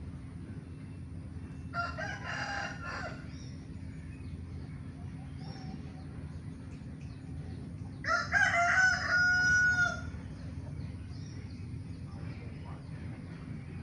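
Rooster crowing twice: a shorter crow about two seconds in, then a louder, longer crow near the end that ends on a held note.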